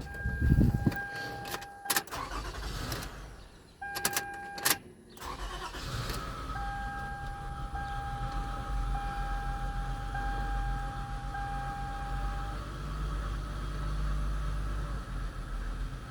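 A warning chime and a few clicks, then about five seconds in the 2007 Toyota Sienna's 3.5-litre V6 starts and settles into a steady idle while the chime keeps beeping for several more seconds. The engine is running on a freshly fitted alternator.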